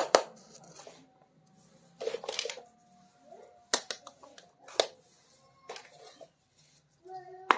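Small plastic miniature kitchen toys being handled: a scattering of sharp clicks and taps, a few seconds apart, with light scraping between.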